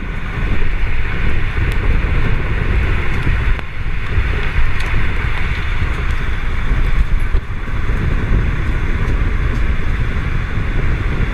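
Strong wind rushing over the microphone near a tornado: a loud, steady roar with heavy rumbling buffets and a hissing rush.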